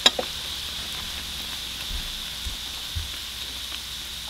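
Hot oil sizzling and crackling steadily around freshly added chili flakes, which are toasting in the oil's residual heat with the burner off. A single sharp click right at the start.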